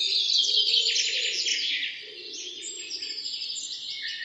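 Birds chirping: a dense chorus of rapid high chirps and trills, a little louder in the first two seconds.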